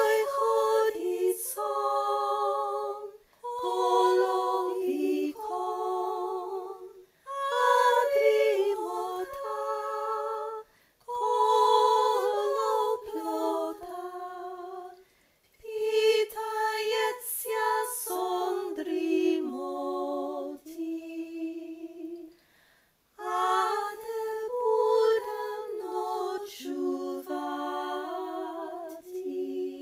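A solo woman's voice sings a slow traditional Ukrainian lullaby unaccompanied, with no clear words. She sings in held phrases of a few seconds each, with short pauses for breath between them.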